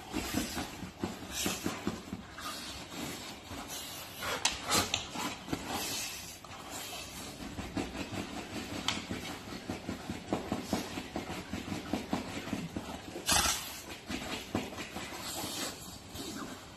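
Two golden retrievers play-wrestling: irregular snuffling, mouthing and rustling of fur against a fabric dog bed, with one louder rustle about thirteen seconds in.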